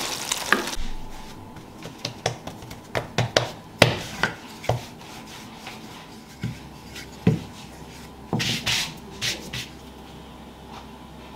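Scattered sharp wooden taps and knocks with some dry rubbing: a wooden spatula against a metal pan, and a wooden rolling pin working dough on a stone counter. A brief rubbing swish comes a little after the middle.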